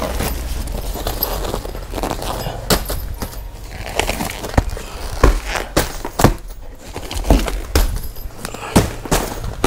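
Plastic-wrapped bedsheet packages rustling and crinkling as they are pulled out of a packed bale and handled, with irregular sharp knocks and clatters as they are moved about.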